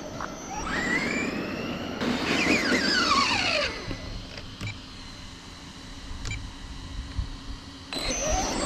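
Brushless electric motor of an MJX 10208 V2 RC monster truck whining as it accelerates and slows on a 4S battery. A rising whine comes about a second in, and falling whines follow around the second to fourth seconds. After a quieter stretch, the whine returns loudly near the end.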